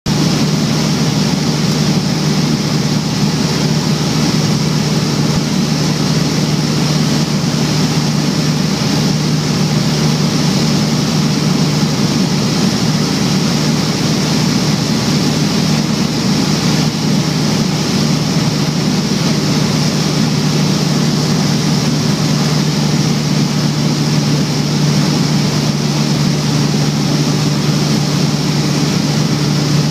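Light single-engine propeller plane's engine and propeller droning steadily, heard from inside the cabin, with a strong, even low hum.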